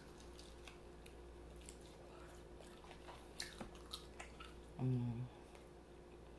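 A person chewing a bite of chicken wing, with scattered soft clicks and smacks, and a short hummed "mm" about five seconds in.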